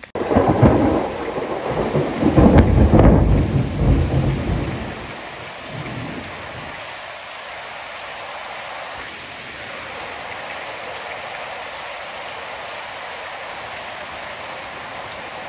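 Thunderstorm: a loud, rolling low rumble of thunder over the first five seconds, then a steady hiss of rain and wind in the trees.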